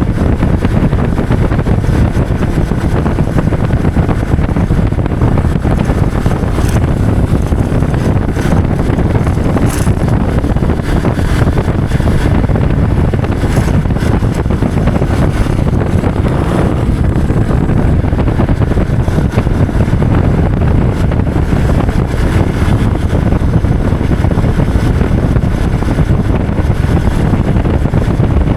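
Motorcycle riding along, its engine running under heavy wind buffeting on the microphone.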